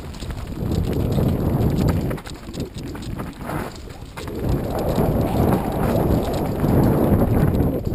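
Mountain bike riding fast down a loose rocky trail: tyres crunching and rattling over stones and the bike clattering, a steady rumble of small impacts that eases for a couple of seconds in the middle.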